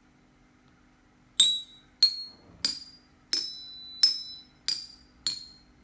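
Glass bottles holding different levels of water struck one after another, seven sharp clinks about two-thirds of a second apart, starting about a second and a half in. Each rings briefly at a slightly different pitch, set by how much water is in the bottle.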